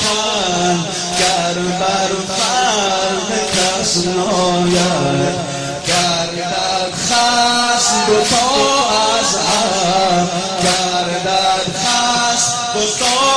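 A male voice chants a Shia Muharram lament (noha) in a wavering, ornamented melody over a steady beat of sharp strokes roughly once a second.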